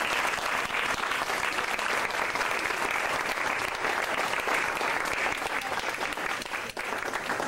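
Room full of guests clapping steadily.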